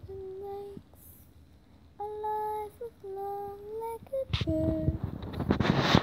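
A girl singing slow, long-held notes alone, with no accompaniment. About four seconds in, a loud rustling noise from handling comes in over and after her last note.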